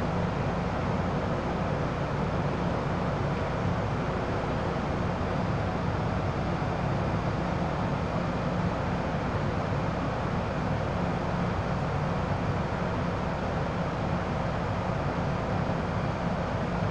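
Steady hum inside an MTR M-Train car standing at a platform with its doors closed, its onboard equipment running at an even level with a low drone underneath.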